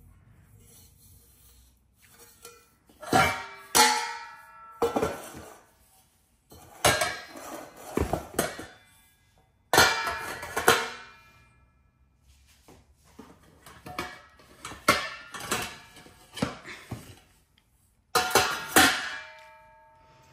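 Stainless steel steamer pot and perforated steamer tiers clanking and scraping against each other as they are handled and stacked. The clanks come in irregular clusters with short gaps between them, each with a brief metallic ring.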